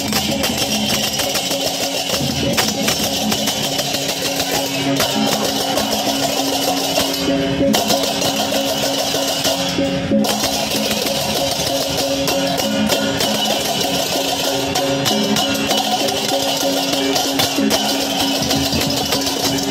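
Continuous loud percussion music, dense drum and percussion strokes with a few steady held tones underneath.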